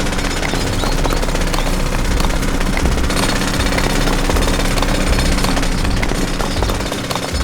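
Small electric motor of a miniature model machine running steadily, with a dense, continuous clatter of small stones. The sound eases slightly near the end.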